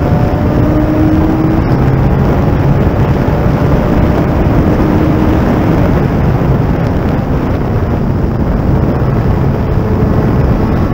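Open-cockpit Thunder Roadster race car at speed: steady heavy rush of wind over the onboard camera's microphone, with the car's engine note faintly audible underneath, rising and falling in pitch.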